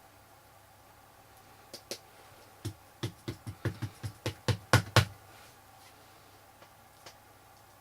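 A quick run of about a dozen sharp taps on the craft table, about three a second and getting louder toward the end: an ink pad being dabbed onto rubber stamps to ink them for stamping.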